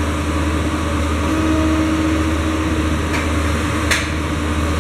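Polar 92 EM-Monitor guillotine paper cutter running with a steady motor hum during a cut, with a few sharp clicks from the machine, the loudest about four seconds in.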